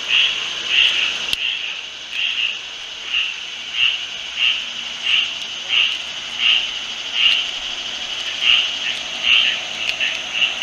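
A small animal gives short high calls over and over, about one and a half times a second, over a steady high hiss. There is one sharp click about one and a half seconds in.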